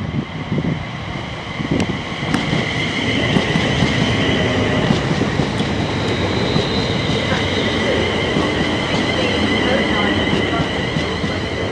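Two coupled Class 350 Siemens Desiro electric multiple units running past: a steady rumble of wheels on rail with a high-pitched whine held throughout. A couple of sharp clicks come about two seconds in.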